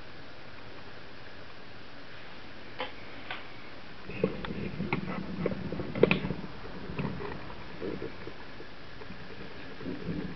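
Scattered small clicks and soft knocks over a steady hiss: two faint clicks, then from about four seconds in a denser, irregular run of clicks with low rumbling, the kind of noise made by handling a camera or small toy.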